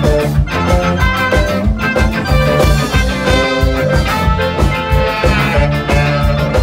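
Live band playing an instrumental passage: trumpet and saxophone lines over bass guitar and drums, with a steady beat and no singing.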